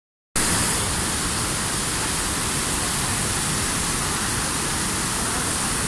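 Düden Waterfall's falling water: a steady, even rush of noise that begins suddenly just after the start.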